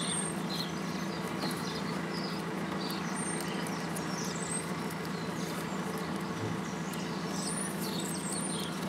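A steady low mechanical hum with birds chirping now and then.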